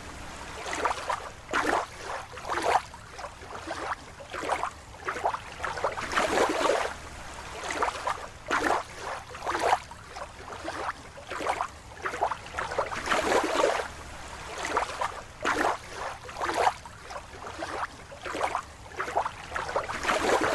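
Water sloshing and splashing in uneven bursts, roughly two a second.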